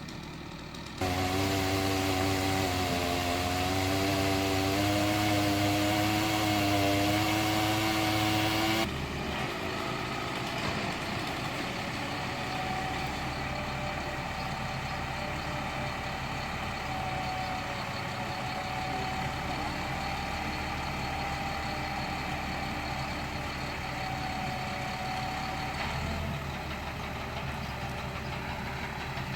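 Heavy truck engine running at idle. For the first several seconds a louder, wavering higher engine note sits over it, then cuts off, leaving the steady idle.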